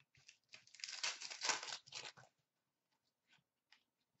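Hands rustling and crinkling through trading cards and torn foil pack wrappers in a bin. It lasts about two seconds and is followed by a few faint ticks.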